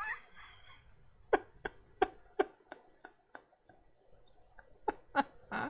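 A man laughing uncontrollably in short, cough-like bursts, about three a second, with a brief break in the middle.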